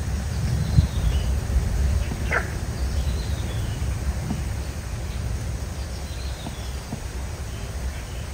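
Outdoor ambience: a steady low rumble with faint, high, short chirps scattered through it. Two short, sharp animal calls stand out, one about two seconds in and one at the very end.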